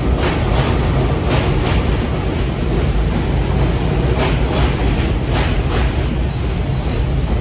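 New York City subway train running on the track, a steady rumble with pairs of sharp clacks as its wheels cross rail joints, several times.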